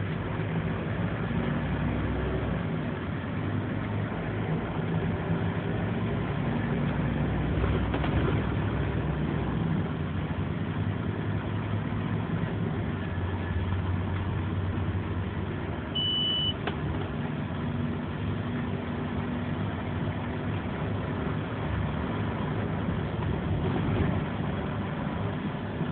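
Scania OmniLink bus heard from inside the passenger saloon while under way: a steady diesel engine and road noise, the engine note shifting up and down with the gears and speed. A short high beep sounds once about two-thirds of the way through.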